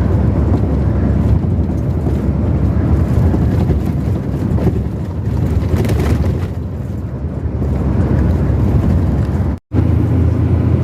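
Steady road and wind noise of a vehicle driving along a highway, a dense low rumble that cuts out for a moment near the end.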